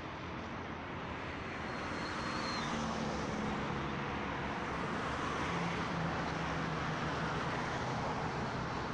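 Road traffic: a steady rush of passing cars and their engines, growing a little louder about two seconds in.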